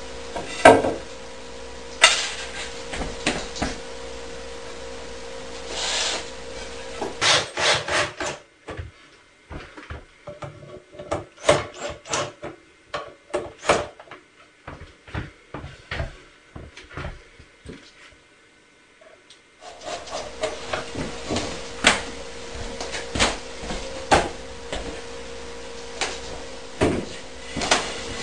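Pine boards and plywood knocking and scraping as a wooden box is handled and fitted together, in a run of sharp knocks with some rubbing. Under it runs a steady low hum, which stops for about ten seconds in the middle.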